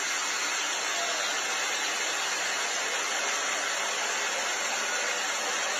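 Steady rushing of fast-flowing floodwater pouring through a street, an even hiss-like noise with no breaks.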